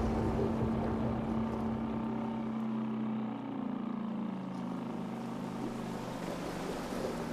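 Boat engine sound effect in an animated film: a steady motor hum that slides lower in pitch and thins out about three seconds in.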